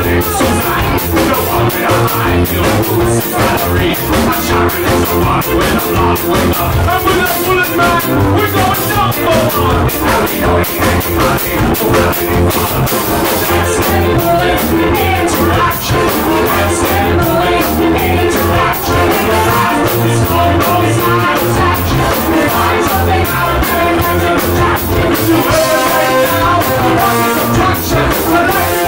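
Live ska band playing: drums with a steady beat, bass, electric guitar and a horn section including trombone, with a singer on lead vocal.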